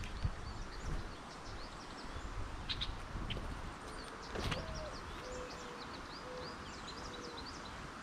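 Faint high chirps of small birds, with a few sharp taps, and from about halfway in a low hooting call of several drawn-out notes, the first rising and the rest level.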